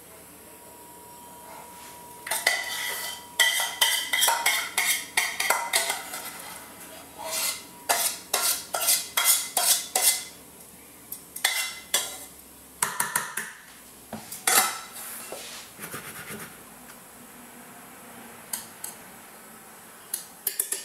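Stainless steel saucepan clinking and scraping as thick béchamel sauce is scraped out of it into a glass baking dish. A quick run of sharp metallic clicks and scrapes, several a second, starts about two seconds in, then thins to scattered knocks and a few faint ticks.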